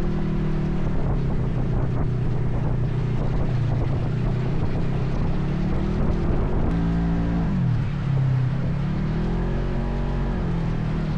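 ATV engine running steadily. Its revs drop about seven seconds in, then climb again a couple of seconds later.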